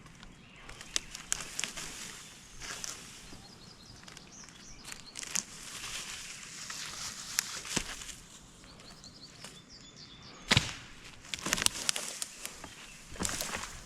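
Irregular knocks, clicks and rustling, with one heavy thump about ten and a half seconds in, followed by a quick run of further knocks.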